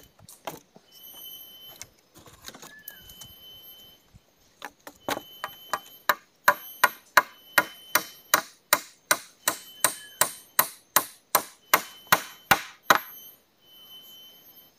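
A fast run of sharp strikes on wood, about three a second. The strikes start light about five seconds in, grow louder, and stop suddenly a couple of seconds before the end.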